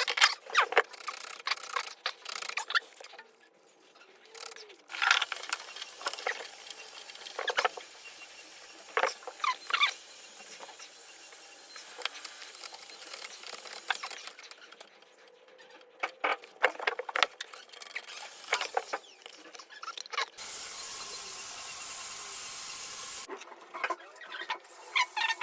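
Bath fittings being handled and pushed together: scattered clicks, knocks and squeaks, with a steady hiss for about three seconds near the end.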